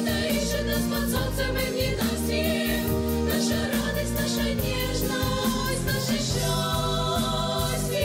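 Girls' choir singing, held notes moving in steps, over an instrumental accompaniment with steady low bass notes.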